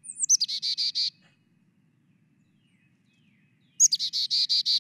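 Recorded Carolina chickadee chick-a-dee call: a high note sliding down, then a quick run of about six buzzy 'dee' notes. After a pause of about two and a half seconds, a second call starts near the end with a longer run of 'dee' notes.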